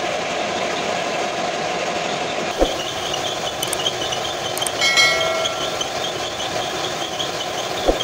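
Steady hiss of a paint spray gun's compressed air with its air compressor running, broken by two short clicks, one about two and a half seconds in and one near the end.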